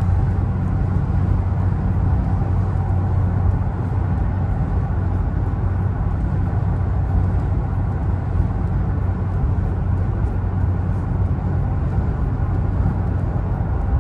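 Steady road noise inside a Toyota's cabin cruising at highway speed: a low, even drone of tyres and engine.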